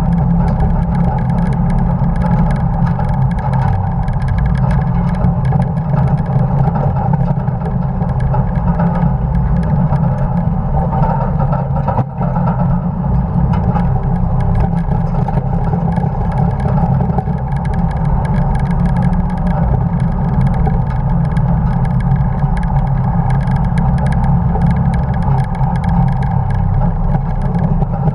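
A 1950 Dodge pickup truck running flat out on a race track: steady, loud engine and road noise with no let-up except a brief dip about twelve seconds in.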